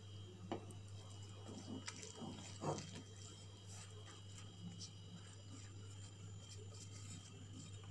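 Faint wet squishing of a hand mixing flour with water and milk into paratha dough in a glass bowl, with a few soft clicks in the first few seconds, over a steady low hum.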